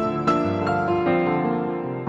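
Soft instrumental background music with piano, notes changing every fraction of a second.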